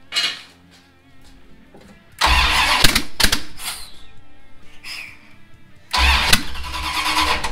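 Chrysler 360 LA small-block V8, freshly fitted with J heads and with no exhaust manifolds on, being cranked and fired on its first start after the head swap. It catches loudly about two seconds in, dies back, then fires loudly again about six seconds in, barking straight out of the open exhaust ports.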